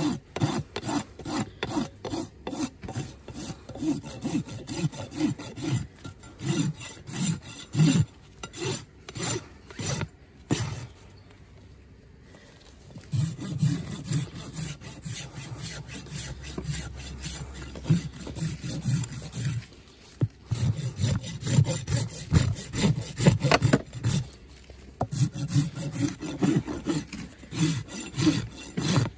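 Farrier's hoof rasp scraping across a horse's hoof wall in quick repeated strokes during a trim, pausing briefly twice.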